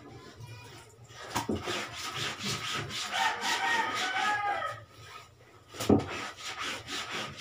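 Plastic scrub brush scrubbing wet, soapy laundry by hand: a quick run of rasping brush strokes on the cloth. There is one sharp knock near the end.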